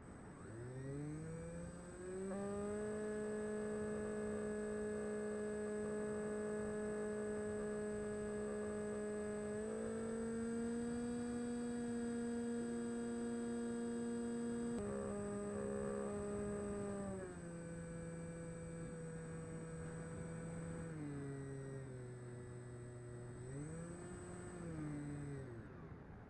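SkySurfer RC foam plane's electric motor and propeller running as a steady whine: throttled up over the first two seconds, held, stepping up and then down in pitch around the middle, then throttled back lower, with a brief surge shortly before it winds down at the end. A faint constant high-pitched whine sits above it throughout.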